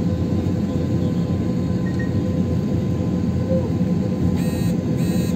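Steady low rumble and hum inside a jet airliner's cabin as it taxis, with two short high beeps near the end.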